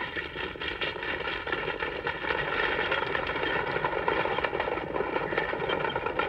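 Horses galloping and a stagecoach rattling along: a dense, rapid clatter of hoofbeats that grows louder about two seconds in.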